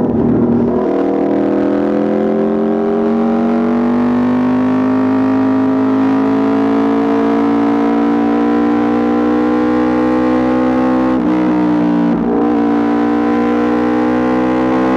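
Aprilia RSV4 RR's V4 engine running loud through an Austin Racing exhaust, its pitch rising slowly and steadily, with two brief dips in pitch about eleven and twelve seconds in.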